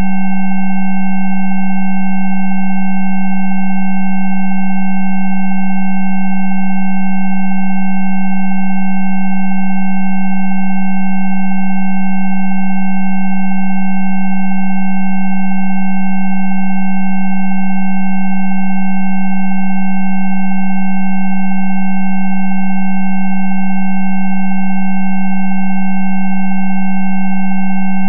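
Spooky2 Rife frequency track: several electronic sine tones held together at constant pitch and loudness, the loudest a low hum with fainter higher tones above it. It is a Rife therapy frequency set meant for adhesions.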